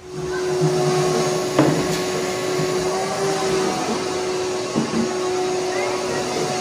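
A motor running steadily with one constant whining tone, with a couple of brief knocks about one and a half and five seconds in.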